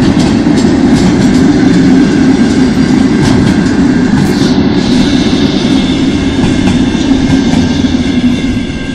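Empty freight-train flat wagons rolling past close by: a loud, steady rumble with wheels clicking over the rail joints. It eases off near the end as the last wagon goes by.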